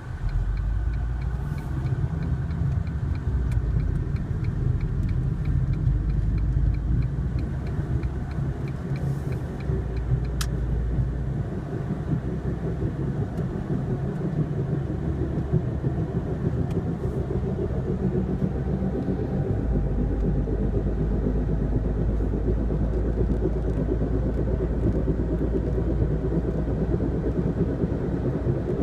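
2001 Ford Focus on the move, with a steady low grinding rumble from the front driver-side wheel at speed. The noise persists even though the front rotors, the sway bar links and the driver-side wheel bearing have been replaced. A faint, rapid, even ticking runs under it for roughly the first third.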